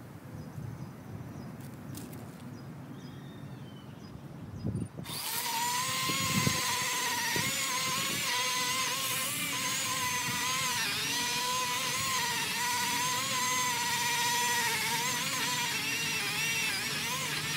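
Cordless electric chainsaw starting about five seconds in and running steadily with a high whine, its pitch wavering slightly as it cuts into a log.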